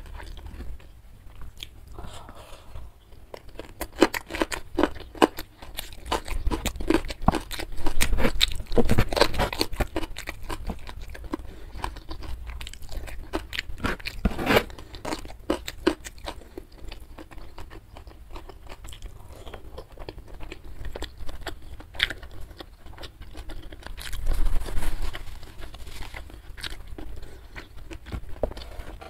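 Close-miked eating sounds: chewing and crunching a hand-eaten meal of rice with squid chilli sambal, full of small wet clicks and smacks, busiest in several stretches.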